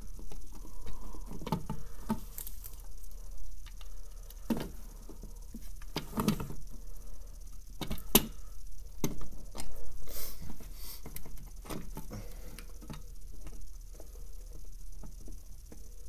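Hands handling a plastic fire alarm pull station and a screw: irregular small clicks, taps and scrapes, with a few louder knocks about six and eight seconds in.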